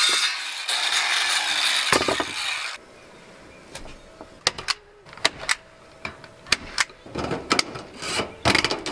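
A cordless power tool runs steadily against wood for nearly three seconds, then stops abruptly. Scattered light clicks and rustling from handling wire mesh follow.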